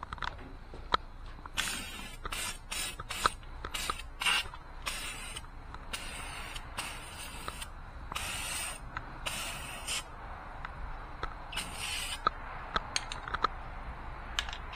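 Aerosol spray can of Rust-Oleum truck bed liner coating hissing in a rapid series of short bursts as the nozzle is pressed and released again and again.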